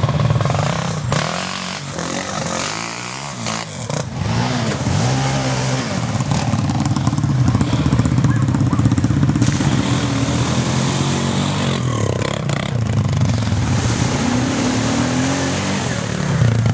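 ATV engine revving hard as the quad churns through a muddy water hole, its pitch rising and falling again and again. It drops somewhat quieter for a couple of seconds early on, then runs loud again.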